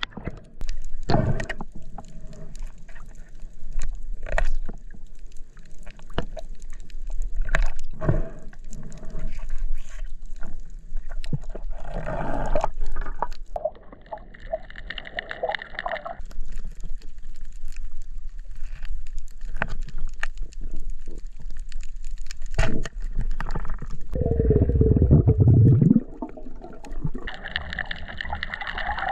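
Muffled underwater sound picked up through a camera housing: water movement with scattered sharp clicks and knocks, and a louder low rush for about two seconds near the end.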